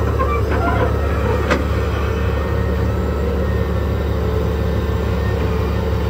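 Heavy excavator diesel engine running steadily with a deep drone. A few short knocks or clanks come in the first second and a half.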